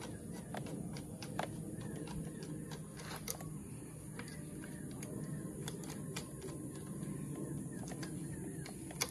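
Scattered light clicks and taps of hand tools and plastic as a motorcycle's handlebar switch housing is unscrewed and worked loose, over a steady low hum.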